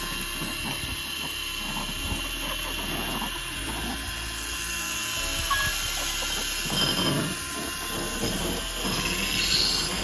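Small electric drive motors of a homemade remote-control model tractor running as it drives, a steady high whine that swells slightly twice near the end.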